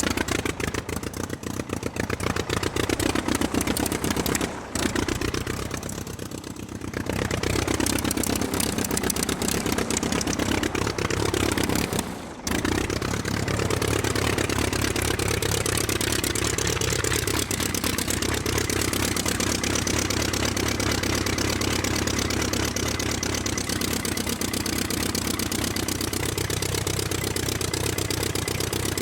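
Piston engine sound effect running with a fast, even firing beat, its pitch rising and falling as it revs. It dips briefly about five and seven seconds in, and breaks off for a moment about twelve seconds in.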